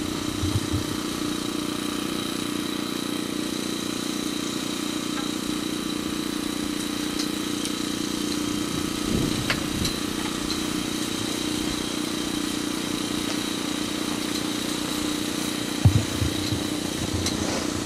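An engine running steadily at idle, a constant unchanging drone, with a few soft low thumps, the loudest about sixteen seconds in.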